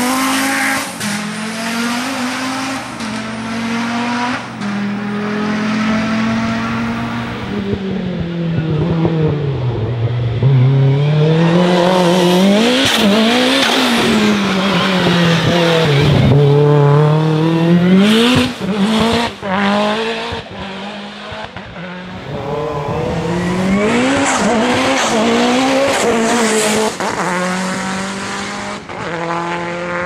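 Hillclimb race cars, among them a turbocharged Lancia Delta Integrale rally car, accelerating hard through tight bends. The engine note climbs and drops again and again with gear changes and lifts for the corners, with a few sharp cracks from the exhaust about two-thirds of the way through.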